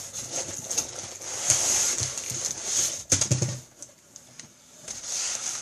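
Rustling and scraping of packaging as a laptop held in foam end caps is lifted out of a cardboard shipping box, with a sharp knock and a dull bump about three seconds in.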